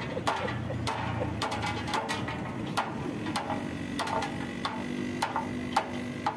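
A wooden block knocked repeatedly against an aluminum sliding-door sill, tapping the adapted roller-track section down into place: a run of sharp, uneven knocks, about two or three a second.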